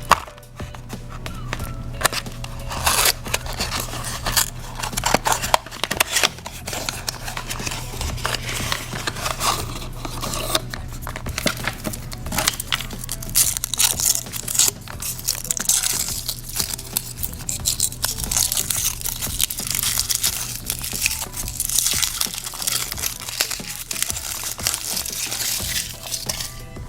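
Packaging being handled: a chocolate surprise egg's box opened and its wrapper crinkled and torn in irregular rustles and clicks, over steady background music.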